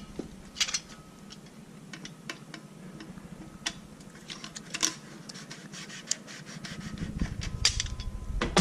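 Scattered light clicks and faint scraping of small parts and the camera being handled, with no steady machine sound.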